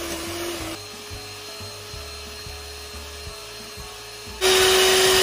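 Electric hand mixer beating whipped cream in a glass bowl, its motor running with a steady whine. The whine steps higher and quieter about a second in, then comes back much louder near the end.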